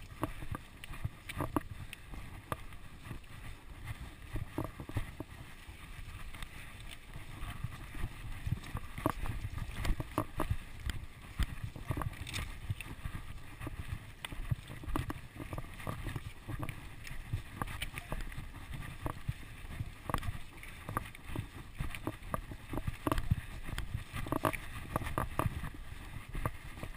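Ellsworth Evolve mountain bike riding over a rocky trail: tyres rumbling over dirt and stones, with frequent irregular knocks and rattles as the wheels hit rocks.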